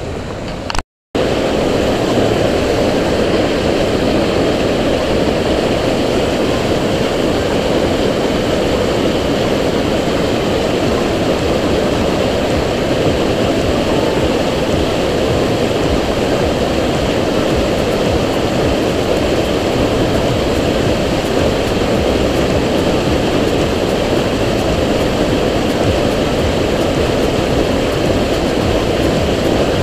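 Steady rushing of a rocky jungle stream tumbling over a small cascade, a loud even roar of white water. It cuts out briefly about a second in, then runs on unchanged.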